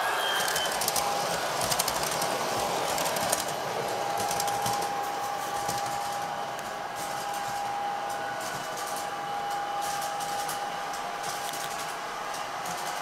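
O-gauge model train running on three-rail track: the subway cars' wheels click over the track joints as they pass during the first few seconds, then a steady whir with a faint constant whine continues as the train runs on around the loop.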